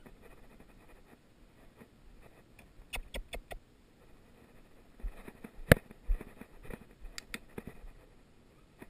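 Several sharp clicks from a hand-held training clicker, a quick cluster and then single clicks, the loudest a little past halfway, over faint rustling on grass. The clicks mark the puppy for coming back to the trainer's side.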